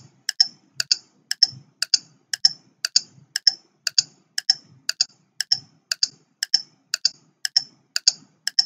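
Clock-tick sound effect of a quiz countdown timer, ticking steadily at about two ticks a second.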